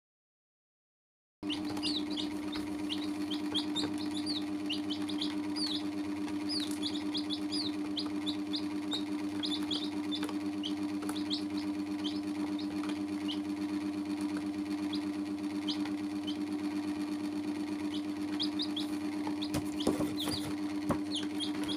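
Young chicks peeping: many short, high cheeps in scattered runs over a steady low hum, after a second or so of silence at the start. A few soft knocks come near the end.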